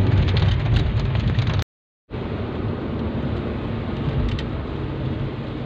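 Steady road and engine rumble heard from inside a moving car in the rain, with raindrops ticking on the windshield. The sound cuts out completely for about half a second near two seconds in, then the rumble comes back a little quieter.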